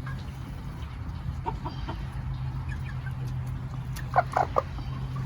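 Hens clucking: a few soft short clucks about a second and a half in, then three louder clucks in quick succession near the end, over a steady low hum.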